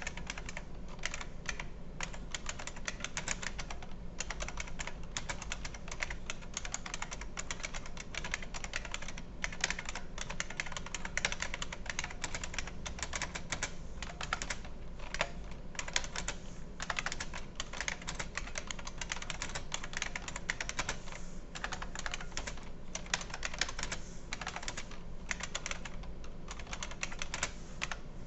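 IBM Model M buckling-spring keyboard being typed on continuously: a fast, dense stream of keystroke clicks with brief pauses between bursts.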